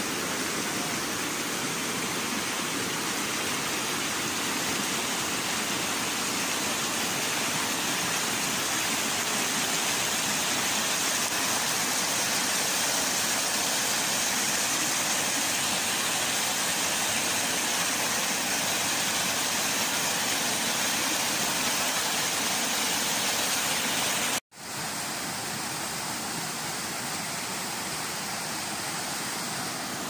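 Shallow rocky river rushing over boulders in white-water rapids: a steady rush of water. It cuts out for an instant about three quarters of the way through, then resumes a little quieter.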